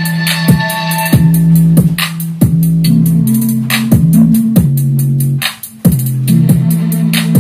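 Electronic dance music with a kick drum about twice a second, a held, stepping bass line and ticking hi-hats, played loud through a homemade speaker box of 5-inch car speakers driven by a small Bluetooth amplifier board.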